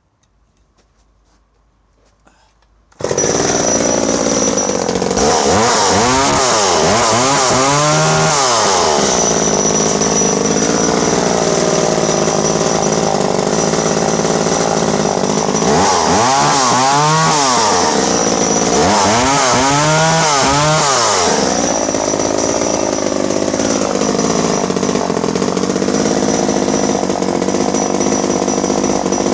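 A vintage Danarm 1-36 MkII two-stroke chainsaw engine comes in suddenly about three seconds in and runs loudly. It is revved in groups of quick throttle blips, a few about a third of the way in and more around two-thirds of the way in, and settles back to a steady run between them.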